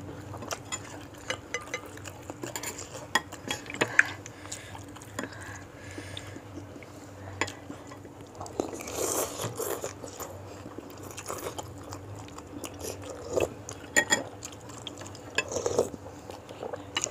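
Spoon and fork clinking and scraping against a bowl of bakso meatball soup, with chewing between, in scattered sharp clicks.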